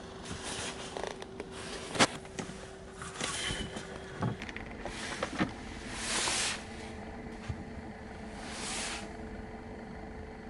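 Handling noises in a car cabin: clicks and a few short soft rustles from hands working plastic parts on the dashboard and centre console. A sharp click about two seconds in is the loudest sound, all over a faint steady hum.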